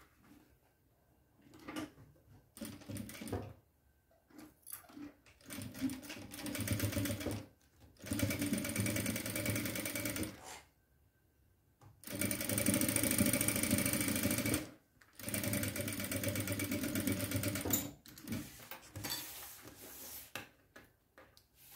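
Electric straight-stitch sewing machine stitching a seam in four runs of a few seconds each, starting and stopping with short pauses between, from about six seconds in to about eighteen seconds in. Before and after the runs there are only quiet scattered clicks and rustles of the fabric being handled.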